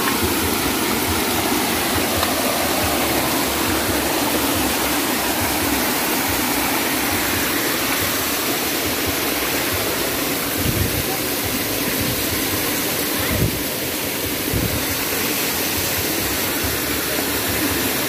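Small mountain stream rushing steadily as it splashes and spills over rocks into shallow water. A couple of dull low bumps come partway through.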